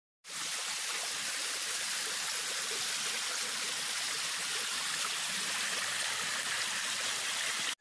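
Shallow river running over rocks and stones: a steady rush of water, mostly a high hiss. It cuts off abruptly near the end.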